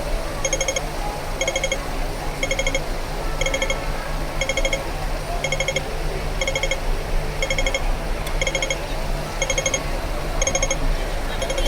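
Hong Kong pedestrian crossing signal sounding its repeating pattern: short bursts of rapid, pitched electronic ticks, about one and a half bursts a second, over steady street traffic hum.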